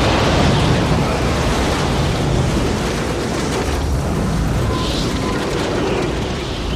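Film sound effects of a tornado: loud, continuous rushing wind over a deep, steady rumble.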